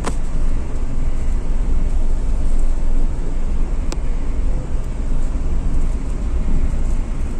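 Inside the cabin of a Renault Triber on a rutted dirt track: the steady low rumble of its 1.0-litre three-cylinder petrol engine and tyres on the rough ground. A sharp knock sounds at the start and another about four seconds in.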